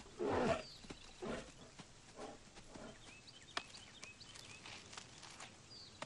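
Black bear vocalizing: one short, rough growl about half a second in, then a few quieter grunts. Faint bird chirps sound in the background.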